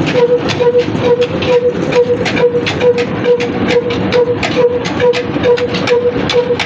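Old heavy diesel engine running under load, driving a belt-driven line shaft, grain-cleaning machine and water pump, with a steady rhythmic beat of about four knocks a second and a whine that pulses in time with it.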